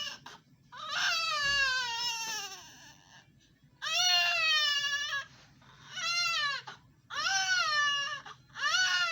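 Baby crying: about five wails in a row, each a second or so long with short breaths between, the pitch arching and falling away at the end of each cry.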